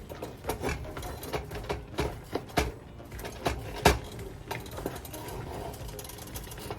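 A spoon clinking and scraping against a cooking pot as the okra soup is stirred: a series of irregular knocks, the loudest about four seconds in.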